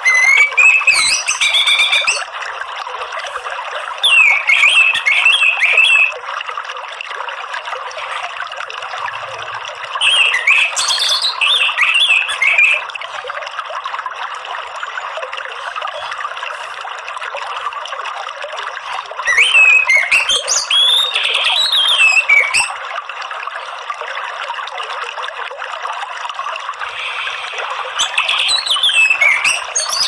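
Orange-headed thrush singing in five separate bouts of quick, varied high whistled phrases, over a steady background of running, trickling water.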